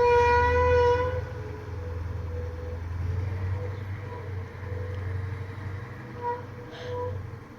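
KAMAZ truck's brakes squealing: a loud, steady high squeal with overtones that fades after about a second into fainter, intermittent squeaks at the same pitch, over the low rumble of the truck.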